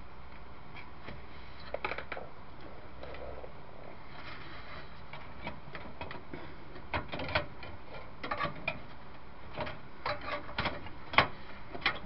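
Small irregular clicks and light metallic ticks of a Wi-Fi card's screw-on antennas being unscrewed and handled. A few scattered clicks at first, coming faster after about seven seconds, with one sharp click near the end.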